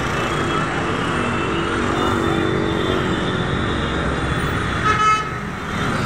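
Dense road traffic: a steady rumble of engines and tyres, with a short horn honk about five seconds in.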